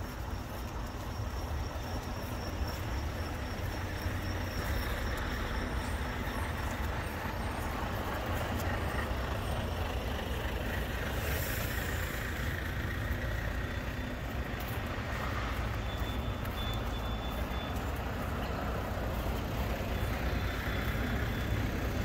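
Heavy trucks' diesel engines running close by, a steady low rumble that grows a little louder over the first few seconds, with a short hiss about halfway through.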